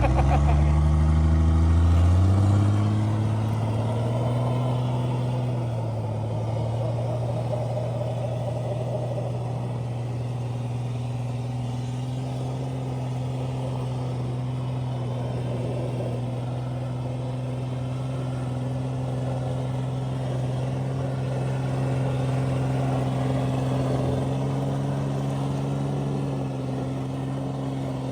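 Turbocharged truck engine revved up hard over the first two seconds, then held at high, steady revs while the rear wheels spin in snow in two-wheel drive, with a small further rise near the end.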